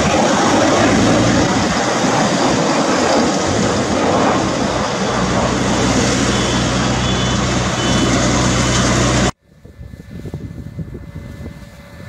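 Farm tractor and round baler engines running steadily and loudly. About nine seconds in the sound cuts off abruptly and a much quieter machine hum with scattered light clicks follows, from a combine harvester working in rice.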